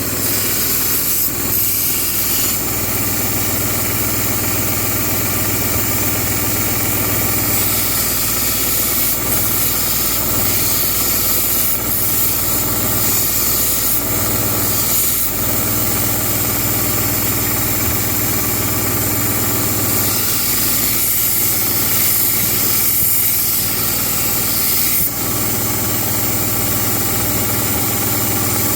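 Belt grinder running steadily with its motor humming, and the high hiss of a steel knife blade being ground against the abrasive belt on the soft platen.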